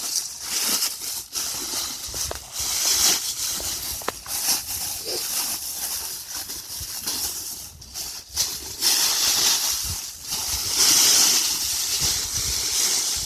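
Crinkling and rustling of a Blizzard Survival Bag's Reflexcell material, a mylar-like foil, as it is unrolled and handled, in irregular swells. Wind buffets the microphone now and then.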